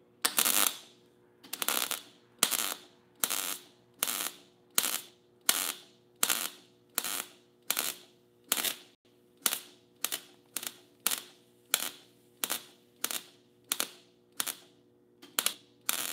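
MIG welder stitch-welding a butt joint on sheet metal in short trigger pulls. Over twenty brief bursts of arc crackle come in a steady rhythm, about one every two-thirds of a second, with pauses between them so the heat stays low and the panel doesn't warp.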